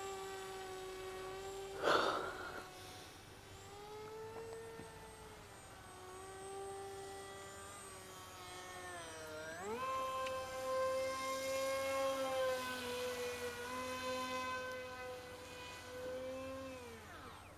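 Bixler RC plane's electric motor spinning an APC 6x4 pusher propeller, a steady whine whose pitch shifts with the throttle. There is a brief noisy burst about two seconds in, a sharp rise in pitch near the middle as the throttle is opened, and a fall in pitch near the end as it is cut.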